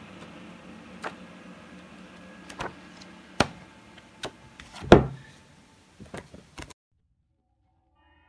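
A softcover book being handled: a series of sharp knocks and rustles as it is shut and turned over in the hands, the loudest about five seconds in, over a faint steady hum. The sound cuts off suddenly about two-thirds of the way through.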